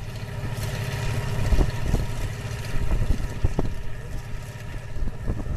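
Tractor engine running steadily at low speed, heard from aboard, with several short knocks in the middle.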